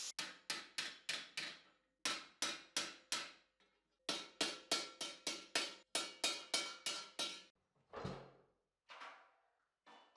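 Hand hammer striking red-hot steel plate over a stake anvil while forging a curved cuirass piece: three runs of quick ringing blows, about four a second, then a few single knocks near the end.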